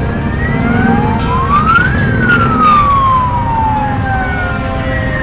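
A siren-like wailing tone that rises over about a second and a half and then falls slowly back down, over a steady low rumble.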